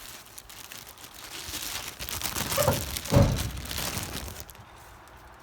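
Crinkling and rustling of food wrapping as the hot dogs are handled, with a short louder low sound about three seconds in.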